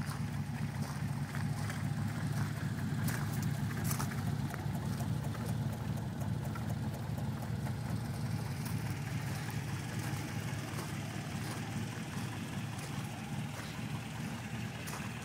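Rover 3.5-litre V8 of a 1977 Morgan Plus 8 idling steadily, with footsteps crunching on gravel.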